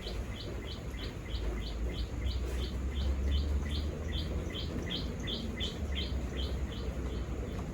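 A bird calling with a short high note repeated evenly, about three times a second, over a steady low rumble.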